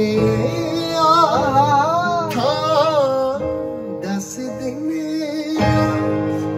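Music: a man singing a slow, ornamented melody with wavering pitch and vibrato over a steady instrumental backing of held tones.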